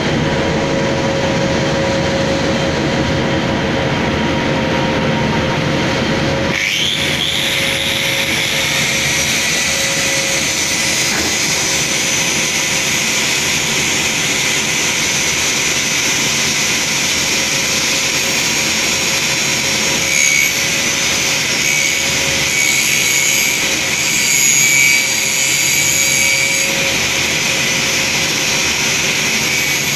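Angle grinder mounted on a lathe, its abrasive disc grinding the head of an engine valve as the lathe spins it: a steady grinding whine over the machine's hum. About six seconds in it turns sharply brighter and more high-pitched. The grinder is cutting back the inner taper of the valve head so the seating face can be lapped smooth.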